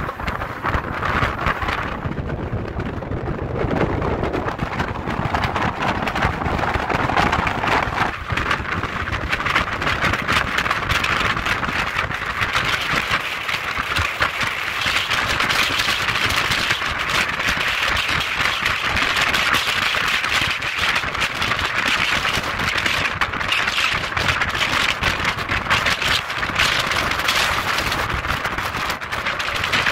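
Wind buffeting the microphone on the open deck of a moving ferry, over a steady rush of water and engine noise.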